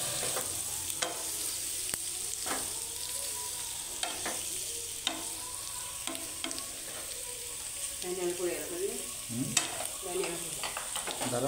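A spatula stirs cubes of sheep blood in a nonstick frying pan, clicking against the pan now and then over a steady sizzle of frying.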